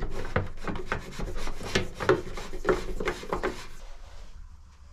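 Hands rubbing, scraping and tapping on wooden wall panels and framing: a quick run of short scrapes and knocks that thins out after about three and a half seconds.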